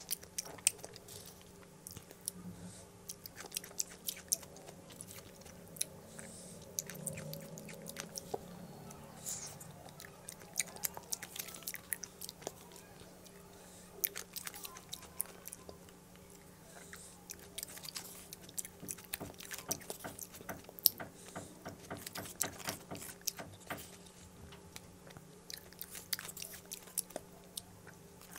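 Close-miked chewing and mouth sounds of a person eating fruit malai, a soft creamy milk dessert, with frequent sharp lip smacks and clicks. A faint steady low hum runs underneath.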